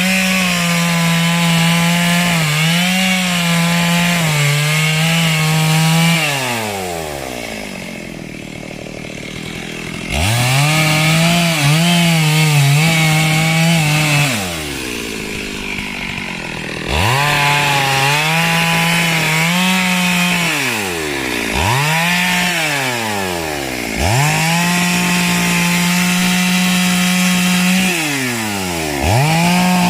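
Chainsaw running at high revs and cutting wood, with a hiss of chain and chips on top. Twice the throttle is let off and the engine falls to idle for a few seconds before revving back up, and it dips briefly several more times later on.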